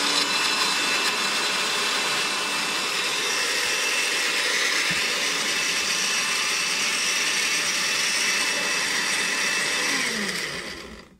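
Electric chopper motor whirring steadily as it grinds prickly pear cactus into a creamy paste. The pitch falls and the motor stops about ten seconds in.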